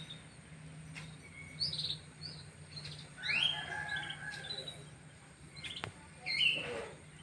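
Domestic canaries chirping and singing in short, separate phrases of quick rising and falling notes, with pauses between them. A single sharp click about two-thirds of the way through.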